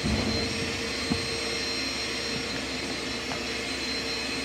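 Vacuum cleaner running steadily, a constant drone with a thin high whine. A towel rustles as it is spread out at the very start.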